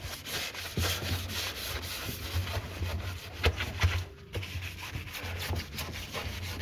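Hand scrubbing on an automatic washing machine: a steady run of quick, irregular rubbing strokes.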